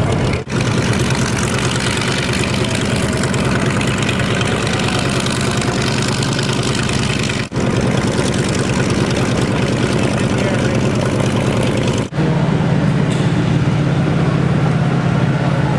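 The twin radial engines of a B-25 Mitchell bomber running at low power as it taxis, a steady, heavy propeller-engine drone. It is broken by two abrupt edit cuts. About 12 seconds in, a third cut brings a different, steadier low hum.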